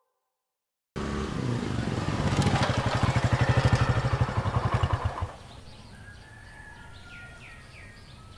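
Motorcycle engine running, getting louder as it comes closer, then switched off about five seconds in. Birds chirp in the quieter background afterwards.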